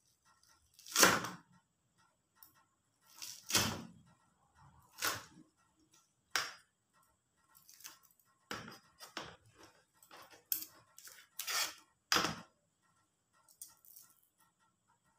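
Kitchen knife cutting through spring onion stalks onto a plastic cutting board: about ten separate, irregularly spaced cuts and taps, the loudest about a second in, with faint ticking underneath.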